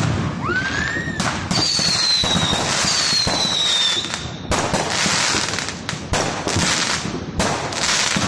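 Consumer aerial fireworks going off in quick succession: sharp bangs over continuous crackling, with a short rising whistle near the start and a long high whistle falling slowly in pitch through the first few seconds.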